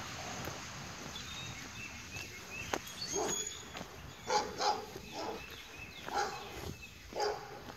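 A dog barking in short bursts, about one a second, over a quiet outdoor background.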